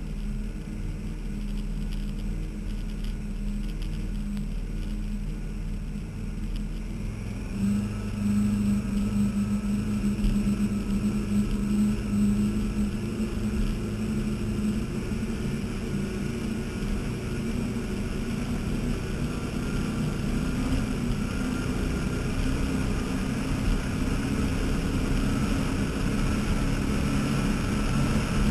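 Offshore racing catamaran's engines running at speed, a steady drone. About seven and a half seconds in, the engine note steps up in pitch and grows louder, and stays there.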